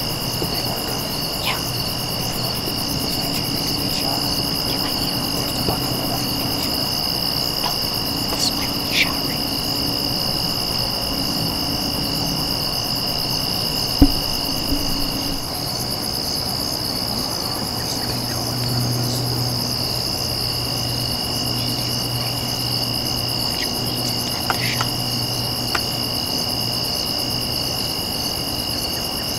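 Crickets and other insects trilling steadily in two pitches, a high one and a lower one that drops out for a few seconds after the middle. A faint low hum comes and goes underneath, and there is a single sharp click about halfway through.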